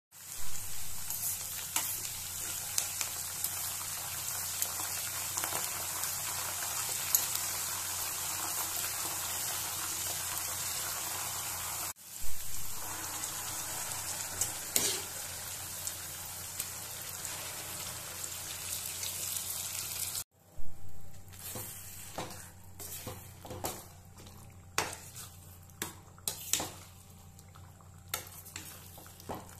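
Hot oil sizzling and spitting in a steel pan as curry leaves, dried red chillies and garlic fry in it, with a red chilli paste added into the hot oil. After a cut about twenty seconds in, the sizzle drops away to a steel spoon clicking and scraping against the pan as the thick tomato pickle mixture is stirred.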